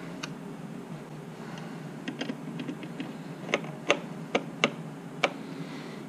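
Several separate sharp clicks and taps of a screwdriver and hands working at a screw in the side of a virtual pinball cabinet.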